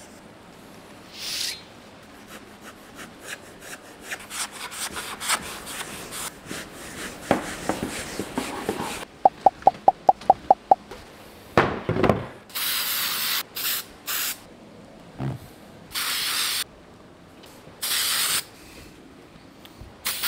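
Rubbing and light knocking, then an aerosol spray can being shaken, its mixing ball clinking about eight times in quick succession, followed by about five short hissing sprays.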